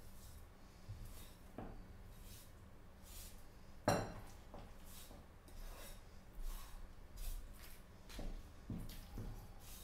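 Faint handling sounds of raw lamb legs being scored with a chef's knife and shifted on a wooden table: soft rubbing and light thuds, with one sharp knock about four seconds in, and a few more soft thuds near the end as the meat is turned.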